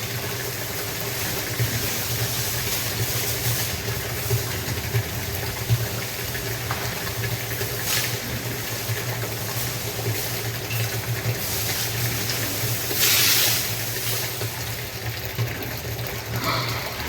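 Motor-driven water sprayer, such as a pressure washer, running with a steady hum while water sprays and gushes, as in hosing down pig pens. The hiss swells briefly about three-quarters of the way through.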